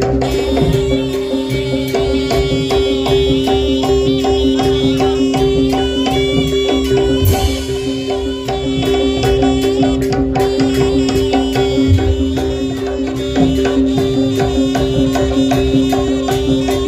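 Jaranan gamelan music playing loudly: quick hand-drum strokes and metallophone notes over two steady ringing tones, with a wavering melody line above. There is a short burst of hiss about seven seconds in.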